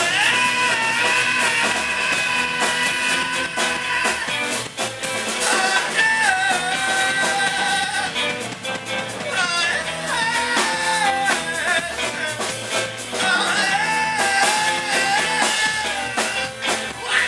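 Live rock band of guitars, violin, bass and drums playing an instrumental passage, with a held lead melody line that slides between notes over the drums.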